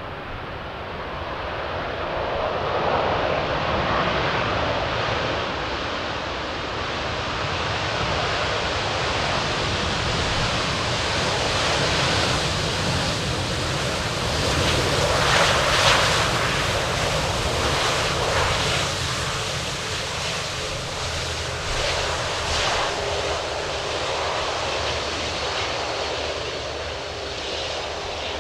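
Airliner's engines passing at the airport: a loud, steady rushing that builds, brightening over the first dozen seconds, and peaks a little past halfway.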